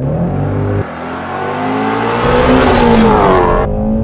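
Ford Mustang Shelby GT350's 5.2-litre flat-plane-crank V8 accelerating hard at full throttle. Its note dips briefly about a second in, then climbs in pitch and grows louder, and the loud rush cuts off abruptly near the end.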